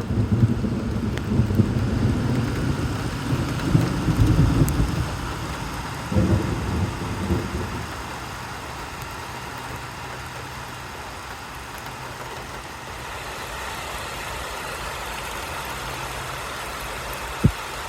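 Steady rain falling. A loud low rumble runs through the first eight seconds and then fades away, and a single sharp click comes near the end.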